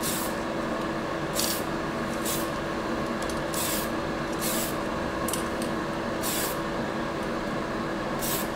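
Aerosol can of Tamiya color spray paint hissing in short bursts, about one a second, as thin coats are dusted onto a plastic model car body. Underneath runs the steady hum of the spray booth's fan.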